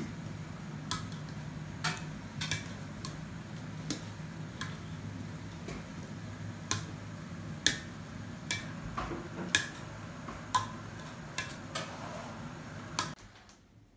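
Metal potato masher knocking and clinking against the sides and bottom of a stainless-steel pot while boiled potatoes are mashed into puree. Sharp, uneven knocks come about once a second over a steady low hum, and both stop abruptly near the end.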